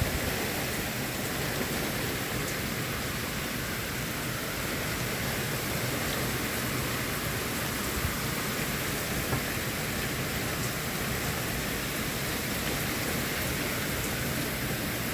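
Rain falling steadily in a thunderstorm, an even hiss with no break.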